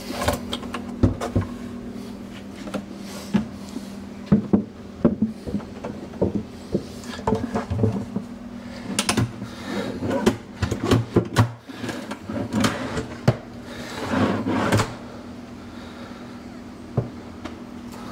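Wooden drawers being fitted into a wooden pantry cabinet: repeated knocks and clicks and scraping of wood on wood as they are slid in on their rails, busiest toward the middle and later part. A steady low hum runs underneath.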